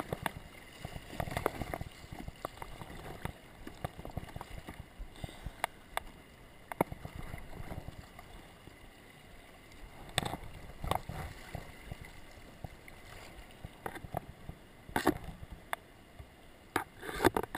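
Kayak paddle blades dipping and splashing at irregular strokes over the steady rush and lap of river water around the kayak's hull.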